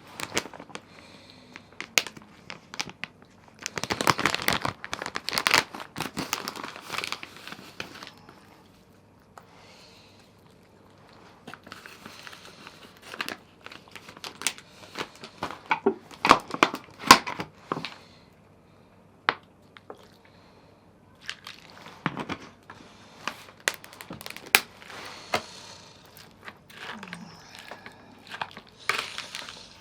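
Plastic packaging being handled, rustling and crinkling in several irregular bursts, with scattered sharp clicks and knocks in between.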